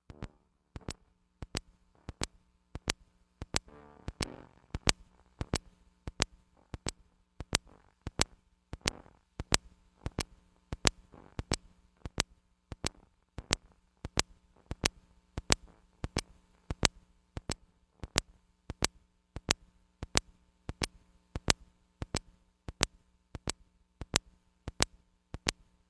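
A steady ticking beat, about three clicks every two seconds, over faint held notes, left from the song's backing track after the singing stops.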